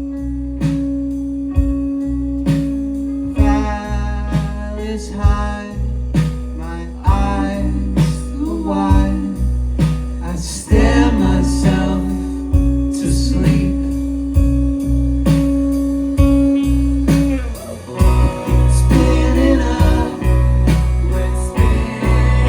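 Indie rock band playing live, mid-song: a steady, even drum beat under a bass line and guitar, with a wavering melodic line over them from a few seconds in until about ten seconds in.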